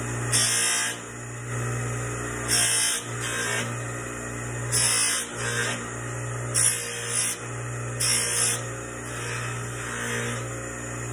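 Bench buffing machine running with a steady motor hum, with a short hiss each time a small stainless steel piece is pressed against the spinning polishing wheel, about every second or two.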